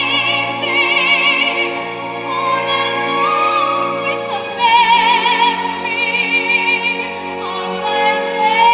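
A woman singing a slow stage-musical song in long held notes with wide vibrato, over instrumental accompaniment.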